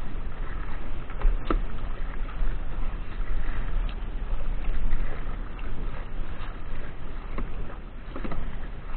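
Kayak moving through choppy river water with water sloshing against the hull, wind buffeting the microphone as a heavy rumble, and a few short knocks.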